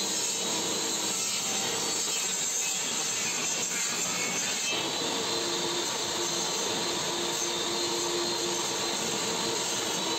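Makita benchtop table saw running and cutting a pine lath, a steady loud saw noise with a motor whine that fades for a few seconds in the middle and comes back about five seconds in.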